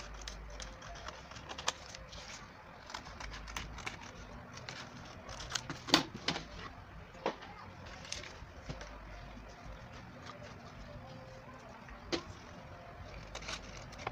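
Stiff cardstock being handled and folded by hand: scattered rustles and light taps, the loudest about six seconds in.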